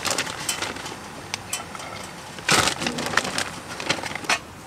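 Pre-cooked fried rice crackling in a frying pan on a camping stove, with a plastic bag crinkling as more rice is shaken into the pan; a louder rustle comes about two and a half seconds in.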